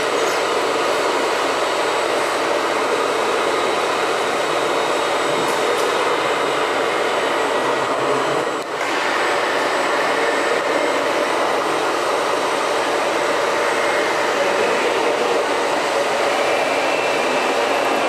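Hydraulic RC model excavator running steadily as it digs, its pump and motors making a continuous machine noise that dips briefly about halfway through.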